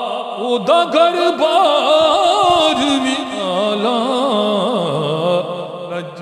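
A man singing a Punjabi naat into a handheld microphone, drawing out a long ornamented passage whose pitch wavers and turns continuously, settling lower near the end.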